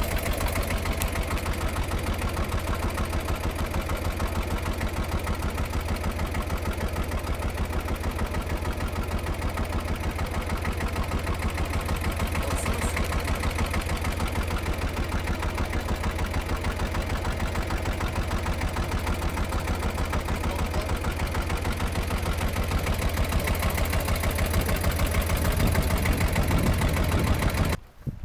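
Boat engine running steadily with a rapid, even chugging, a little louder toward the end before it cuts off abruptly.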